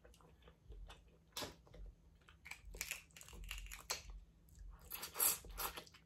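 A person chewing and biting into a crawfish and mussel seafood boil, close to the microphone: irregular wet smacks and crunches, loudest about five seconds in.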